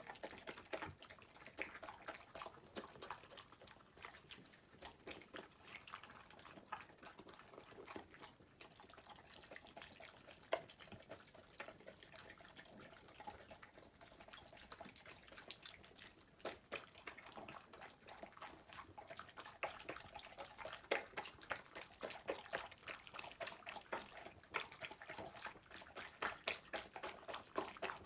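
A small animal eating: faint, wet, irregular smacking and lapping clicks that come faster and louder near the end.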